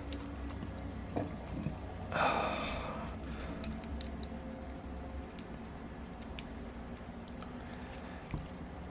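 Faint, scattered light clicks and taps of small metal engine parts being handled as push rods are fitted into a model four-stroke engine, with a short rustling swell about two seconds in.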